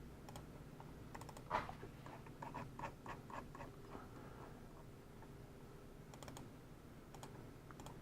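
Computer keyboard keystrokes in short irregular runs, the loudest about one and a half seconds in, over a faint steady hum.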